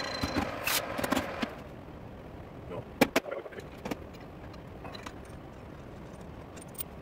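A metal lathe spinning down after a cut, then sharp metallic clanks and clicks as engine parts are handled at the lathe and set down on the workbench. The loudest is a pair of knocks about three seconds in.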